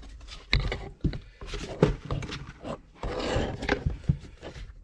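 Handling noise of a portable monitor and its folding cover: irregular knocks and taps, with a stretch of scraping and rubbing a little past the middle, as the monitor is lifted and the cover is moved.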